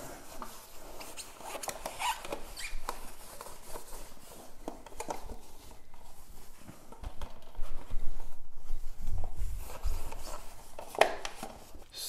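Hands at work on a mower's carburetor: a paper towel rubbing and rustling and a plastic cup being set and shifted under the float bowl, with scattered small clicks and knocks. A few louder low bumps come about eight to ten seconds in.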